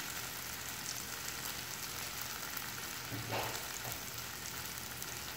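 Onions and tomatoes sizzling steadily in oil in a non-stick kadai, with one short louder sound about three seconds in.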